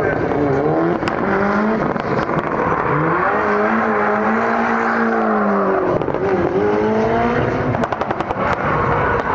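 Turbocharged four-cylinder engine of a Mitsubishi Evo doing donuts, revving hard with the pitch swinging up and down. About eight seconds in comes a quick rattle of sharp cracks from the anti-lag system popping in the exhaust.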